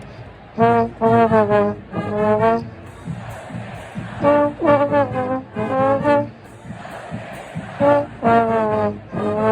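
Marching band brass playing a short three-note figure three times over, with pauses between, over a background of crowd noise.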